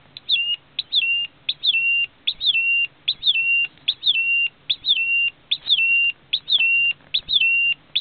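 Homemade siren circuit of two transistor astable multivibrators sounding through a small loudspeaker: a repeating bird-like electronic chirp, a quick high sweep falling into a short steady lower tone, about every 0.8 s. The rhythm shifts during the first second as the circuit's potentiometer is turned, then holds steady.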